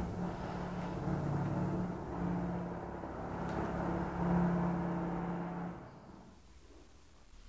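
A motor running with a steady low hum, dying away about six seconds in.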